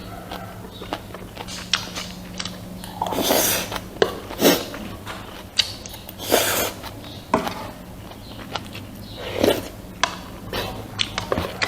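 Close-miked eating: chewing with many small wet clicks, and louder noisy mouthfuls about three, four and a half, six and a half and nine and a half seconds in, over a steady low hum.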